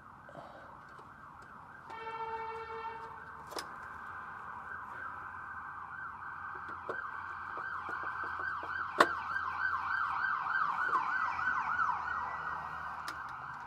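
Emergency vehicle siren sweeping rapidly up and down in pitch, growing louder and then fading near the end. A short horn blast sounds about two seconds in, and there are two sharp clicks, the louder one about nine seconds in.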